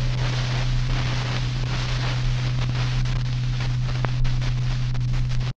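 Steady hiss with a low, constant hum and no music. It cuts off suddenly near the end.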